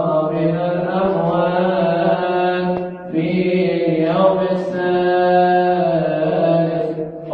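Coptic Orthodox liturgical chant: one male voice sings a long melismatic line, holding much the same pitch while the vowel sounds shift, with a short breath about three seconds in and another near the end.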